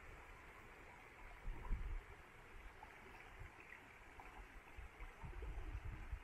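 Shallow freestone river water running over rocks and riffles: a steady, even rush. Low rumbles come through about a second and a half in and again near the end.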